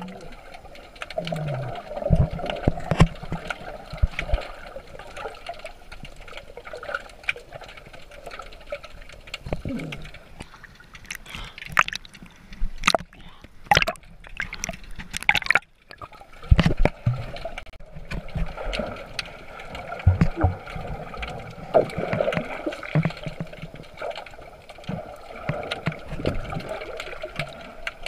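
Muffled underwater water noise heard through a submerged camera: gurgling and sloshing water, with scattered clicks and knocks throughout.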